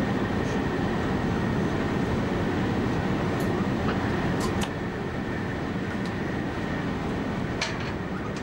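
Steady running noise of an electric express train heard from inside the driving cab at speed: rumble of wheels on rail with wind noise, a faint steady high whine, and a few light clicks.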